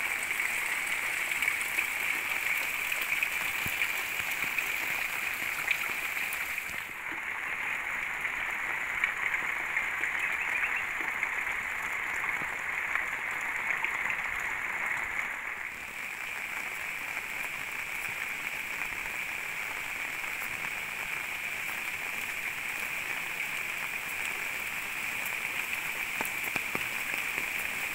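Steady heavy rain falling, an even hiss with a constant high-pitched ring running through it; it sounds duller for several seconds in the middle.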